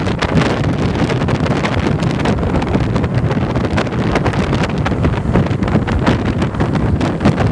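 Wind buffeting the microphone of a handlebar-mounted camera on a moving motorcycle, a steady gusty rush with the motorcycle's running noise underneath.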